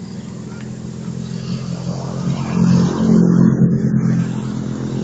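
A motor vehicle engine running steadily, growing louder for a second or two around the middle and then easing off again.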